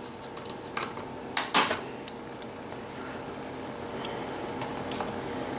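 A few light plastic clicks as the snap-on screen bezel of an HP ProBook 4440s laptop is pried loose from its tabs, the loudest about a second and a half in, over faint steady room noise.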